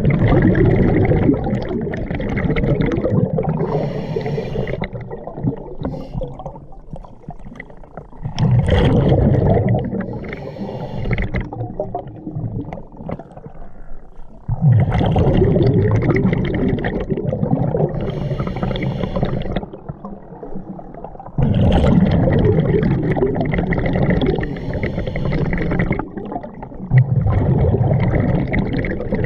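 Scuba diver's breathing heard underwater: long bubbling exhalations through the regulator come every six seconds or so, with quieter stretches between them.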